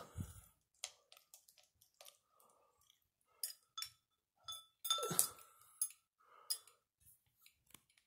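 Ceiling fan's glass light shades handled by hand: irregular clicks, knocks and clinks, with a louder clatter about five seconds in that leaves a brief ringing note.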